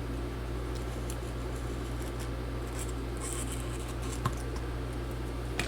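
Faint scraping and small ticks of a tool working a glued MacBook Pro battery cell loose, with a sharper click about four seconds in and another near the end, over a steady low hum.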